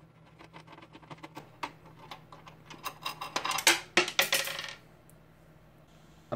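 Small clicks of a screwdriver and metal parts being handled, then, about three seconds in, a small metal washer dropping and bouncing, clinking and rattling for around two seconds before it settles.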